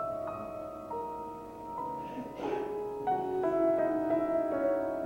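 Soft electric keyboard music: slow chords, each held steady and changing to the next every second or so.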